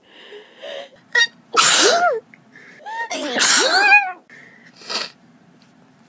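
A person sneezing hard from allergies: two loud, voiced sneezes about a second and a half apart, each led in by sharp breaths, then a shorter sneeze-like burst near the end.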